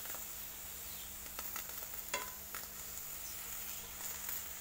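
Chillies, tomatoes, shallots and other spices dry-roasting in a metal pan, a steady sizzle. A few sharp clicks come from a fork turning the pieces against the pan.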